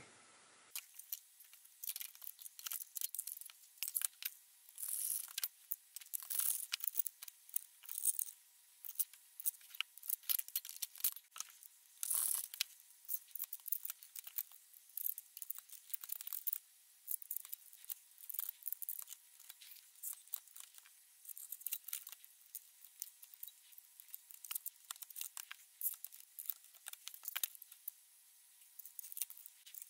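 Faint, irregular clicks, taps and rustles of hands handling the circuit boards, metal battery contacts and plastic case of an XTAR VX4 battery charger as it is put back together.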